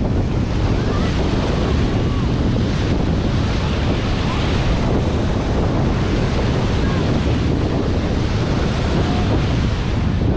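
Steady wind buffeting the microphone, with a heavy low rumble, over the wash of waves on a sandy beach.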